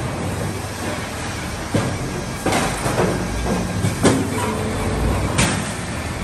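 Log debarking machines running with a steady mechanical din, broken by four sharp knocks of logs against the steel chutes and rollers, the loudest about four seconds in.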